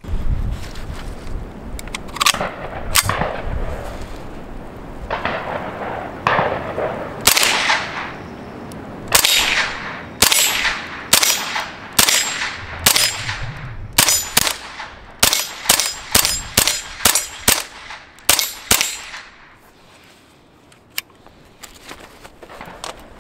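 Suppressed Cotswold Classic Arms CZ Scorpion .22 LR firing a string of about twenty-five semi-automatic shots, each a sharp crack with a brief ring. The shots come slowly at first, then quicken to two or three a second in the second half, and stop a few seconds before the end.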